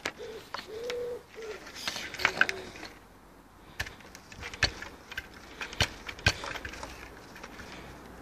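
A few low, arching cooing calls from a dove-like bird in the first two and a half seconds, with scattered sharp clicks and knocks through the rest.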